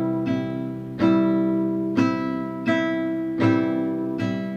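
Acoustic guitar strummed slowly, about six strokes roughly three-quarters of a second apart, each chord left to ring out.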